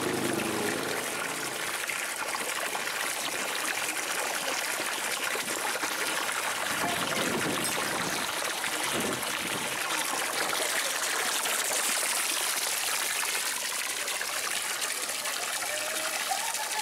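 A thin, steady jet of water splashing into shallow floodwater, a continuous trickling, pouring sound.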